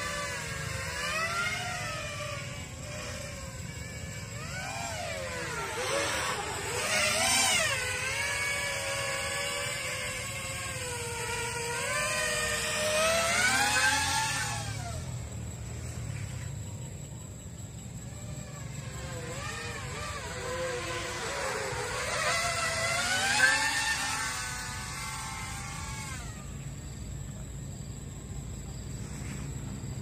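Eachine Wizard X220 racing quadcopter in flight: its four 2205 2300KV brushless motors and propellers whine, the pitch rising and falling with the throttle. The whine swells louder several times and fades away near the end.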